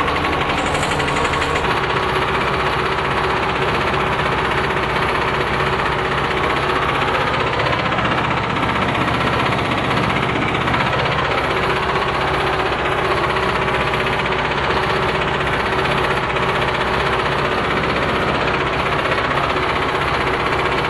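The two-cylinder, air-cooled D-21 diesel of a T-25 tractor running steadily and loudly under load while pulling a row hiller, heard from the cab.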